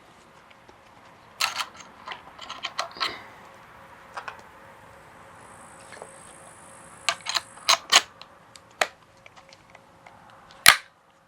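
Clicks and snaps of a Makita DTM51Z multi-tool's quick-release blade clamp being worked and the blade handled, in scattered clusters, with the loudest snap near the end.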